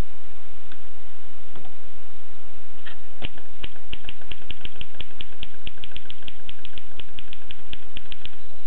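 Typing on a 1920s Erika portable manual typewriter: a few isolated keystrokes, then from about three seconds in a quick run of sharp key-and-typebar clacks, about five a second, over a steady background hiss.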